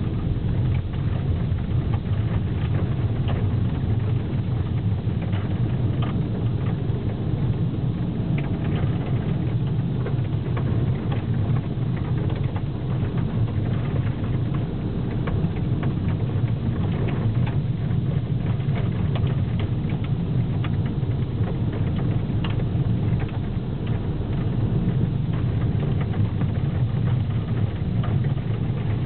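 Steady low rumble of a car's engine and tyres heard from inside the cabin while driving on a snow-covered road, with small scattered ticks over it.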